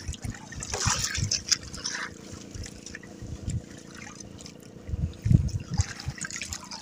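Sea water lapping and splashing against the hull of a small outrigger fishing boat, with a few dull low thumps about five seconds in.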